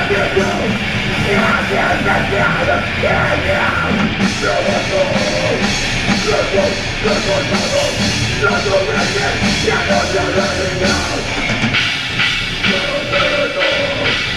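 Live metalcore band playing: distorted electric guitars, bass and a drum kit, loud. The high end gets brighter and busier about four seconds in.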